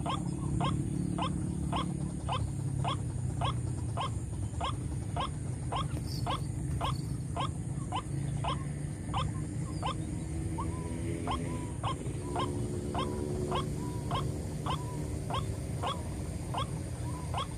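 White-breasted waterhens calling: a short sharp note repeated evenly, a little over two a second, without a break, over a steady low rumble.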